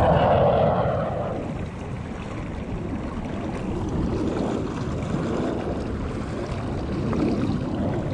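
Low rumble of a jet airliner passing overhead, loudest at the start and dropping off after about a second, over a steady haze of wind noise on the microphone.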